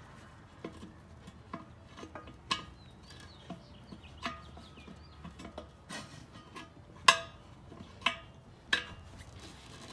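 Tire irons clinking and knocking against the wheel rim as the tire bead is pried off bit by bit: scattered sharp metal taps, the loudest about seven seconds in.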